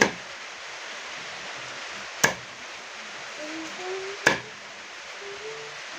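Raw chicken being chopped with a blade on a wooden chopping block: three sharp chops about two seconds apart, over a steady hiss.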